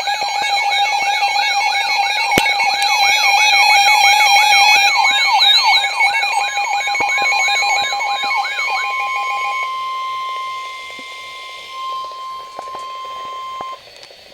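Weather-alert alarm: an electronic siren-like warble repeating about two to three times a second over steady tones, giving way about nine seconds in to a single steady NOAA Weather Radio warning alarm tone that cuts off shortly before the end. It signals a severe thunderstorm warning.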